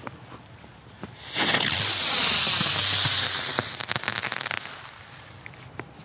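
Weco Vampir winged firework 'bird' firing: a loud hiss starts about a second in and lasts roughly two seconds as it climbs, then turns into a rapid crackle that dies away about four and a half seconds in.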